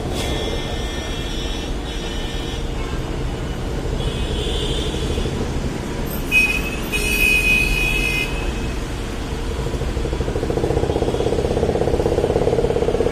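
Traffic noise with vehicle horns honking twice, and an engine throbbing louder near the end.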